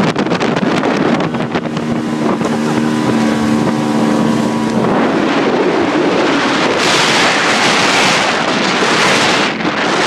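Motorboat running at steady speed, its engine hum holding one pitch for the first few seconds under a constant rush of wind and water. Around the middle the hum drops out and wind buffeting on the microphone takes over.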